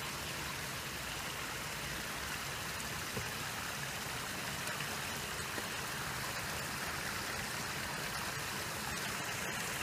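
Creek water running, a steady, even rush with no breaks.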